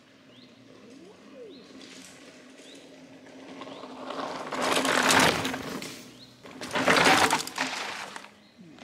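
Mountain bike rolling over a dirt forest path and coming up close, its knobby tyres crunching on the earth, loudest in two surges in the second half as it pulls up and stops. Birds chirp faintly in the background.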